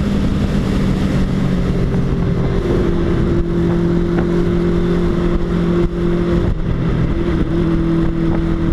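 Old motorcycle's engine running steadily at highway cruising speed, heard from a helmet-mounted camera. The engine note holds nearly constant, shifting slightly about six to seven seconds in.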